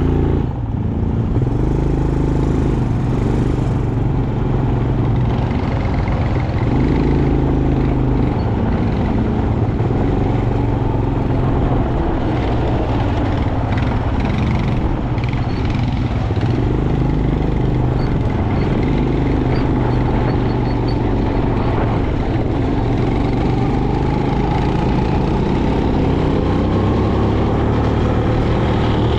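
Quad bike engine running while riding over sand, its pitch rising and falling with the throttle.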